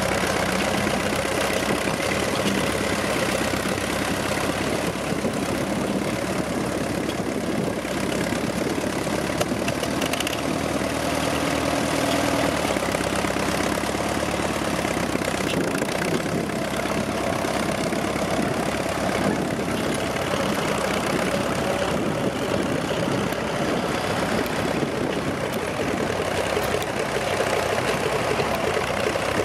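Engine of a 1935 Roadless Case C crawler tractor running steadily under load as it pulls a plough through stubble.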